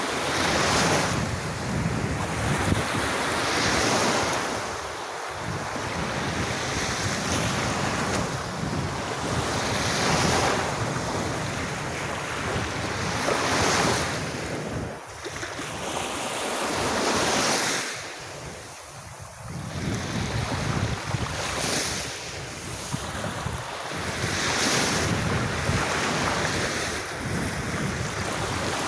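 Sea waves breaking on a beach, the surf swelling and washing back every few seconds, with wind buffeting the microphone.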